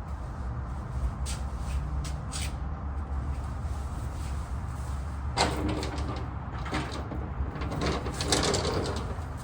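Short bursts of clinking and scraping from hands and tools at work, loudest about five and a half and eight seconds in, over a steady low hum.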